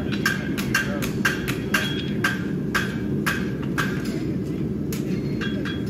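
Farrier's hammer striking steel in steady blows, about two a second, each with a short metallic ring, over a steady low background noise.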